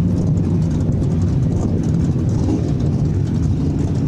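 Race car engines running with a steady low drone.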